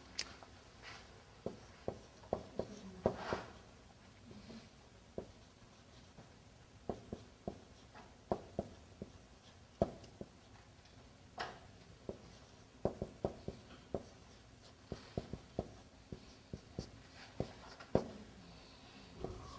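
Marker writing on a whiteboard: faint, irregular short taps and scratches of the pen strokes.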